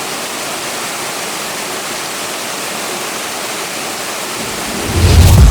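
Waterfall rushing: a steady, even roar of falling water. Near the end, loud music with a deep bass comes in over it.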